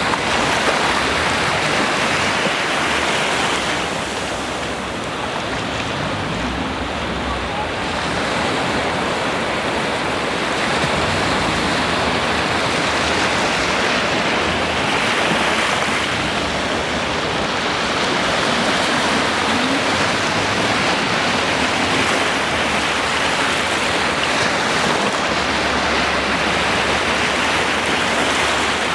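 Ocean surf: waves breaking and washing in as a steady rushing sound that swells and eases slowly every several seconds.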